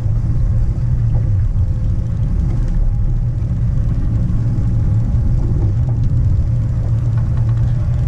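Steady low rumble of the fishing boat's outboard motor running at trolling speed.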